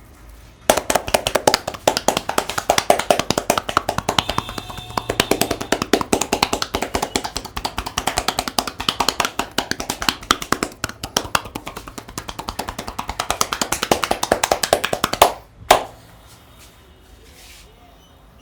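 Fast rhythmic slapping and tapping of hands on a client's head and body in an Indian massage, many strokes a second, drum-like. It stops suddenly, followed by one last slap.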